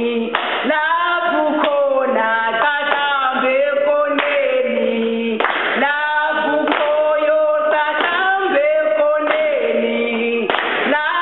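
Two women singing a song together in sung phrases of held notes that step down in pitch.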